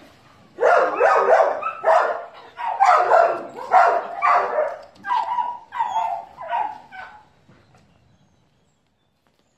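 Dog barking in a rapid series of short barks, well over a dozen, that stop about seven seconds in.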